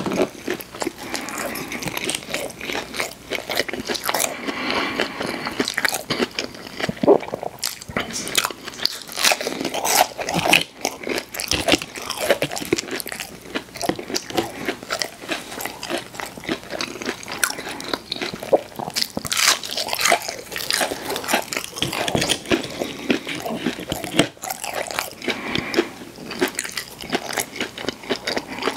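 A person biting into and chewing crunchy fast food, with a steady run of crisp crunches and wet chewing noises.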